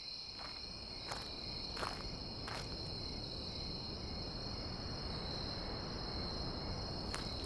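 Steady high chirring of night insects such as crickets, over a low background rumble. Footsteps at an even walking pace cut through it: a few in the first three seconds, then another near the end.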